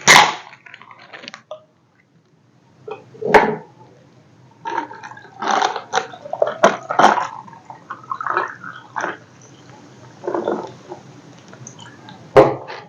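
Close-miked eating and drinking sounds: irregular bites, chews and wet mouth noises, with a few sharp clicks between them.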